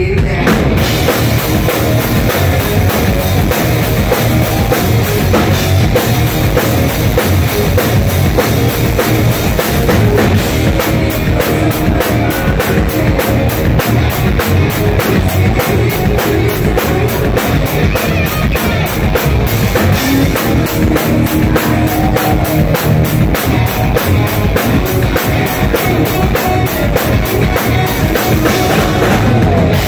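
Live rock band playing loud, with electric guitars over a full drum kit keeping a fast, driving beat. The full band comes in at once right at the start.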